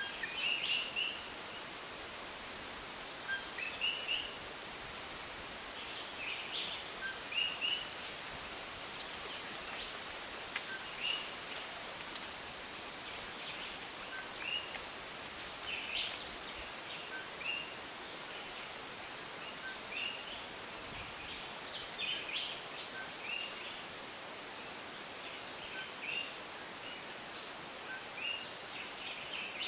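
Coquí frogs calling, a short rising two-note 'co-qui' chirp repeated every second or two, over a steady rainforest background hiss.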